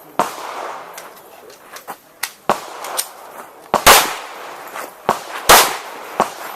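Irregular pistol shots from a Glock 21 in .45 ACP, about ten sharp cracks, the loudest two about four and five and a half seconds in, with fainter cracks between.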